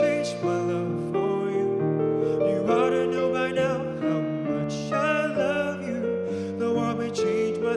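Piano-led music playing, with a wavering melody line above the chords.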